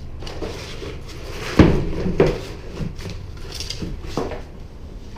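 Handling clatter: a sharp knock about one and a half seconds in, the loudest sound, a smaller one just after, and a few lighter clicks.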